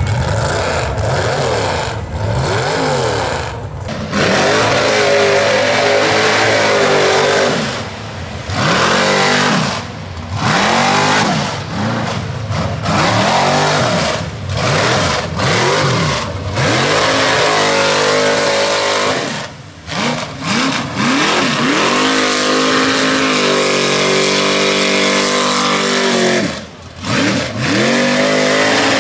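Rear-engine Chevrolet S-10 mega mud truck's engine revving hard over and over, its pitch climbing and falling as it powers through the mud, with a few sudden breaks in the sound.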